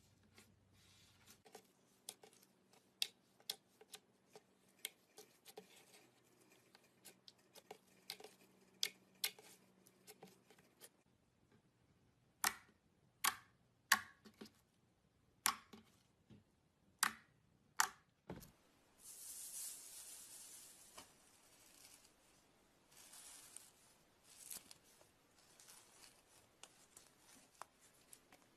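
Glitter slime being handled by hand: a run of sharp sticky clicks and pops, the loudest bunched around the middle, then a longer crackly, hissing stretch of the slime being pulled and squeezed about two-thirds of the way through.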